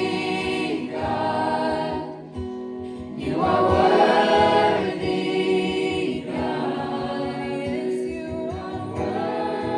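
Background music: a choir singing long held chords, in a gospel style.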